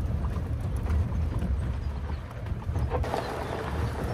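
Open-topped Maruti Gypsy safari jeep driving along a rough dirt track: a low engine-and-road rumble with irregular knocks and rattles from the body jolting over bumps. A rushing hiss of wind and tyre noise comes up about three seconds in.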